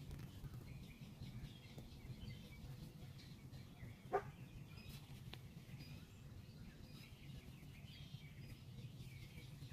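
Birds chirping faintly over a steady low hum, with one short dog bark about four seconds in.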